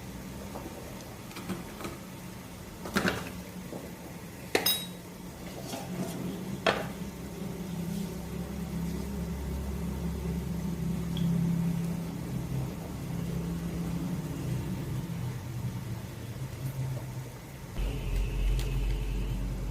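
Metal kitchenware clinking: a few sharp knocks and clinks of utensils against a pot or dish, one of them ringing briefly, over a steady low hum.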